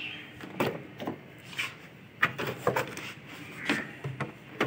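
Toyota Corolla's rear door latch clicking open, then a string of knocks and bumps, about seven, as empty plastic water jugs are handled and set down on the back seat.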